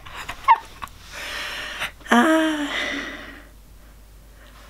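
A person's breathy exhale that turns into a short voiced sigh about two seconds in, then fades out.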